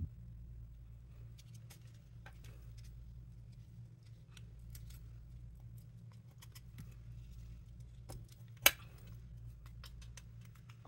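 Faint, scattered clicks and scrapes of a kitchen knife working raw chicken meat down a wing bone, with one sharper tick about nine seconds in, over a low steady hum.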